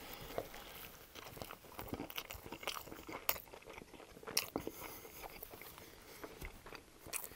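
A person biting into a McDonald's triple cheeseburger and chewing it, with irregular soft clicks and smacks of the mouth.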